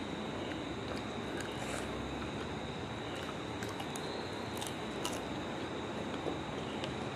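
Close-up mouth sounds of eating jalebi: chewing and biting, with a few short sharp clicks, over a steady background hiss carrying a faint high whine.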